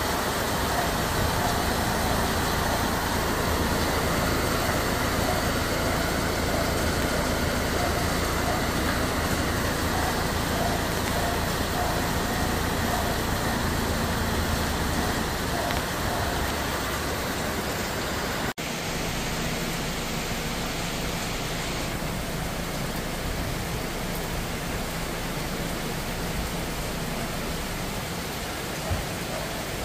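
Heavy typhoon rain falling steadily on trees and rooftops: an even, unbroken hiss. It breaks off for a moment about two-thirds of the way through and comes back slightly quieter.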